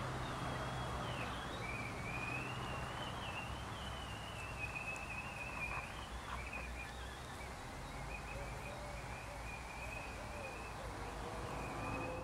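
Faint outdoor ambience: a thin, wavering high-pitched sound that runs on without a break, over a low steady hum.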